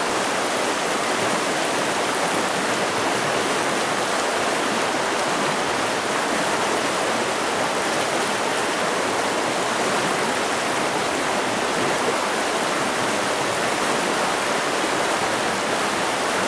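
Fast water of a rocky trout stream running over stones in a riffle: a steady, even rush of water.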